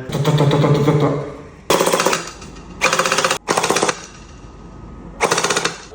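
Airsoft gun firing four short full-auto bursts of rapid shots, each about half a second long.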